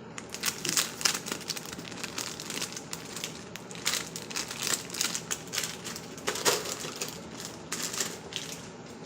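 Crinkling plastic packaging being handled and pulled open around a squishy toy, in irregular bursts of crackles.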